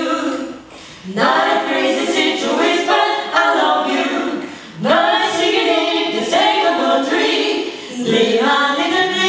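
A small group of voices singing a cappella, with no instruments, in phrases separated by brief breaths about a second in, around five seconds in and near the end.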